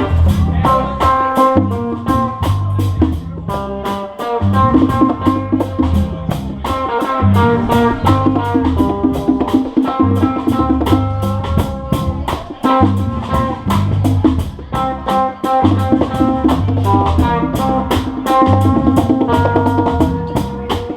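Instrumental break of a reggae song: drum kit and bass line keeping a steady beat under a lead melody of short plucked or struck notes, with no vocals.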